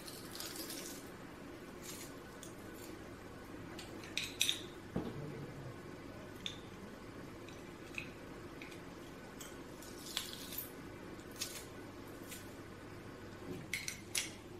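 Metal garlic press clinking and clicking as garlic cloves are squeezed and scraped off into a plastic bowl. The sound is scattered sharp clicks and short scrapes, loudest about four seconds in and in a quick cluster near the end, over a low steady hum.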